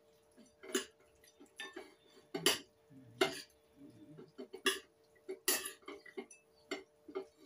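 Spoon and fork clinking and scraping against a bowl as noodles are tossed and mixed with sauce, in irregular knocks about once a second. A faint steady hum runs underneath.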